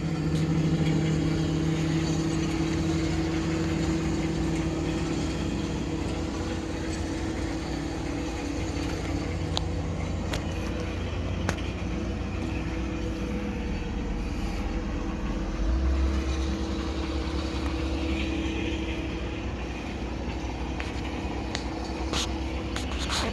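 An engine idling steadily, with a deeper low rumble swelling briefly about two-thirds of the way through.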